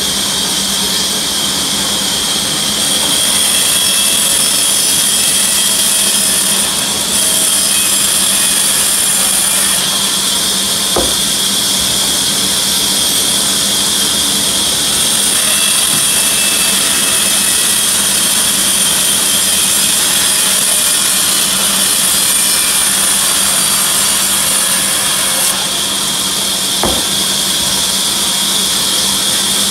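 A large band saw runs steadily while it rip-cuts willow logs into slabs for cricket bat clefts. A high cutting noise comes and goes in long stretches as the blade passes through the wood. There are two short knocks, one about a third of the way in and one near the end.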